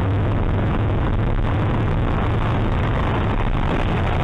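Steady road and engine noise of a car driving, picked up by a dashcam inside the cabin, with a strong low hum.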